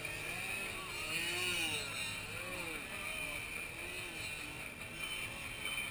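Several radio-controlled aerobatic model airplanes hovering on their propellers and flying at once. Their motors and props make a steady buzzing drone, with overlapping notes that keep rising and falling in pitch as the throttles are worked.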